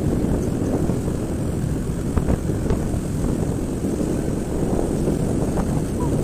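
Motorcycle engine running steadily while riding along, a low drone.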